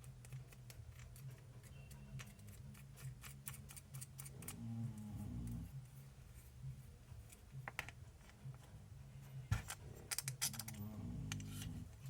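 Light clicks and taps of small RC shock parts being handled at a workbench, with a few louder clicks about ten seconds in, over a steady low hum.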